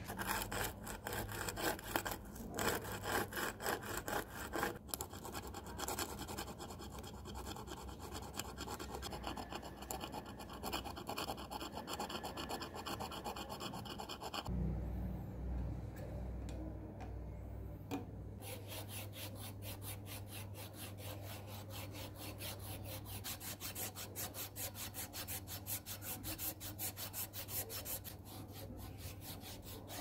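A small plastic lighter part is scrubbed by hand in quick rubbing strokes. About halfway through the sound breaks off and goes quieter for a few seconds. Then an abrasive cloth strip is pulled back and forth around a threaded metal tube held in a vise, making fast, evenly repeated rubbing strokes.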